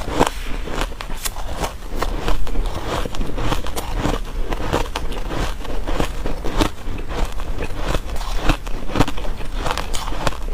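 Ice being bitten and chewed close to the microphone: a dense, irregular run of sharp crunches and crackles, several a second.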